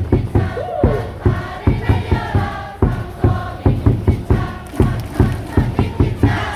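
Baseball stadium crowd singing and chanting a cheer song together over a steady loud beat, about two to three strokes a second.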